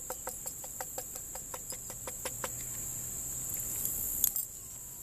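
Flintlock rifle being shaken back and forth, ticking and rattling about five times a second, to work powder through the touch hole into a barrel dry-balled with no charge behind the ball. The ticking gives way to a rustle and one sharp click a little after four seconds, over a steady insect trill.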